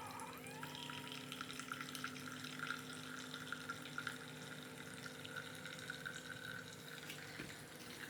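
Electric coffee maker brewing: faint steady hiss and dripping of hot water pouring through, over a low steady hum.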